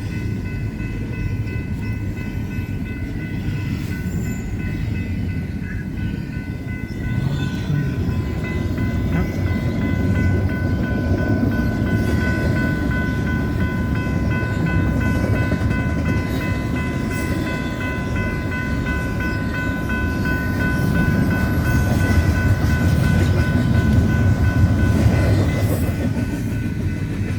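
Union Pacific freight train rolling through a grade crossing, its cars rumbling and clattering over the rails, with the crossing's warning bell ringing steadily. The rumble swells louder near the end.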